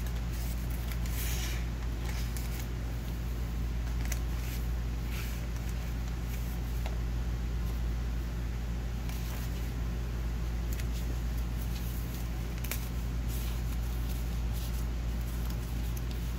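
Paper rustling and crinkling in short, scattered bursts as the pages, flaps and paper tags of a handmade junk journal are handled, over a steady low hum.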